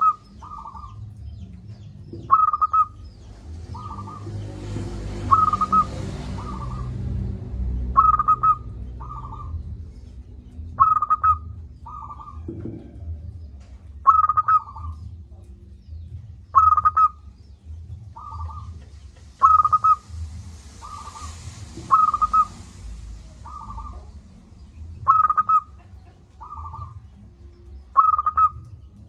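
Zebra dove (perkutut) singing, repeating its cooing phrase about every three seconds. Each phrase is a sharp, loud note followed by a softer one.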